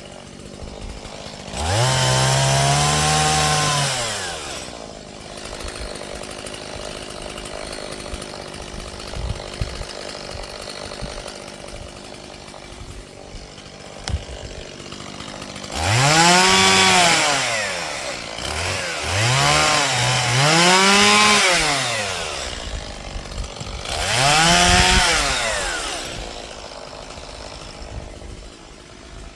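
Chainsaw idling and revving up about five times, each rev climbing in pitch and then sinking back to idle over two or three seconds: one near the start, then four close together in the second half.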